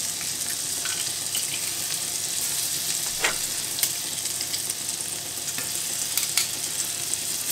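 Melted butter sizzling steadily in a hot cast-iron skillet as freshly pressed garlic drops in, with a few light clicks from the metal garlic press.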